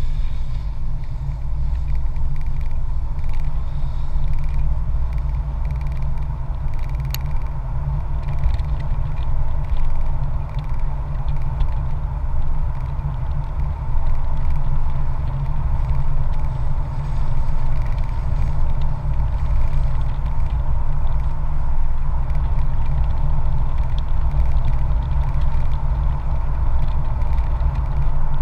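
Steady heavy wind rumble on the microphone of a vehicle travelling at road speed, with engine and road noise underneath.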